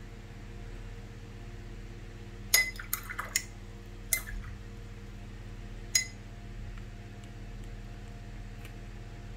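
Watercolour brush being rinsed in a water jar: a quick cluster of ringing clinks as the brush knocks against the jar about two and a half seconds in, then single clinks around four and six seconds. A steady low electrical hum runs underneath.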